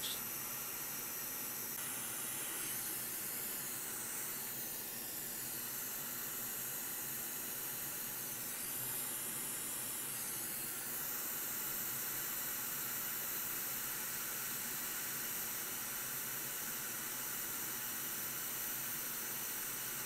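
Hot air rework station blowing a steady hiss of hot air onto a graphics card's PCIe edge connector, heating a glued gold pad to loosen it before it is pried off.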